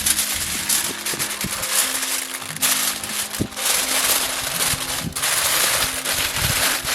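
Aluminium foil crinkling and rustling in uneven surges as it is wrapped around a whole fish, over background music with steady held notes.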